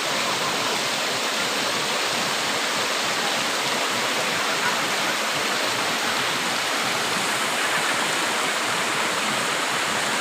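Waterfall water cascading over rocks: a steady, even rush of falling and flowing water.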